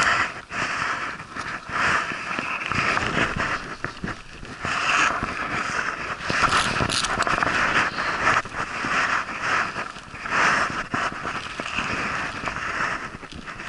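Fabric rustling and scraping against a body-worn camera in irregular swells, with scattered clicks and knocks.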